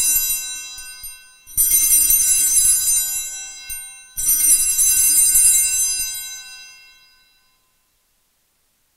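Altar bells rung at the elevation of the chalice after the consecration. One ring is dying away, two more follow about a second and a half and about four seconds in, and the last fades out well before the priest speaks again.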